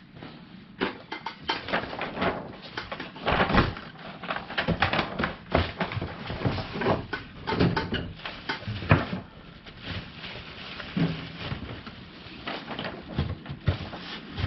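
Irregular clatter, knocks and rattles of hardware and parts being handled, starting about a second in and going on in uneven flurries.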